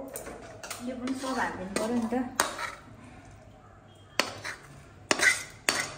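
A steel ladle clanking and scraping against a metal wok and cooking pot while chicken masala is scooped out over the rice. It gives several sharp metal knocks at irregular gaps, most of them in the second half.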